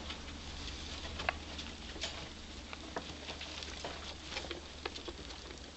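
Pet rats moving about and eating in their cage: irregular small clicks, scratches and rustles of claws, teeth and wood-shaving bedding.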